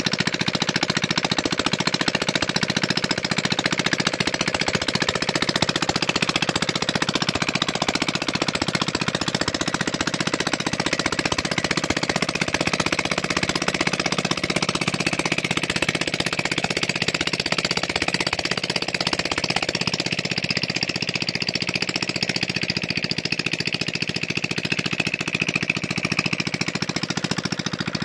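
Worn-out Kubota single-cylinder diesel engine running steadily with no muffler, its open exhaust giving a fast, even knocking pulse of firing strokes. Its tone shifts somewhat in the second half.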